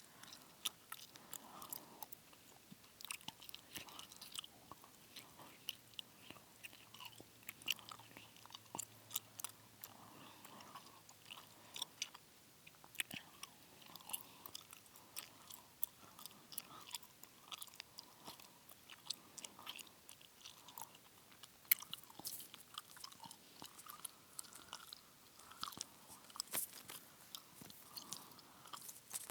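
Close-miked gum chewing: wet smacks and sharp clicks of the mouth, coming irregularly several times a second.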